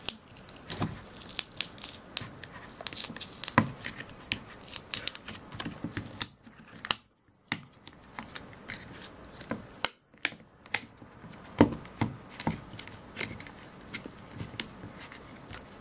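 Plastic mid-frame of a Xiaomi power bank 3 Pro creaking and cracking as it is forced by hand off a battery held by extremely strong adhesive, with irregular sharp clicks and tearing crackles and two short breaks.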